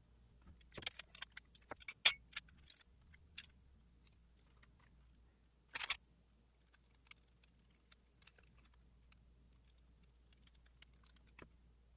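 Sharp clicks and clacks of hard parts knocking together as a 7-inch LED headlight, its mounting ring and a screwdriver are handled: a quick cluster in the first few seconds, a short rattle about six seconds in, then one more click near the end.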